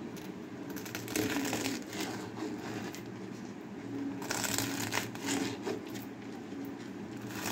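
Kitchen knife slicing a roll of taro leaves layered with gram-flour paste into rounds on a plastic cutting board, in a series of irregular cuts through the leaves.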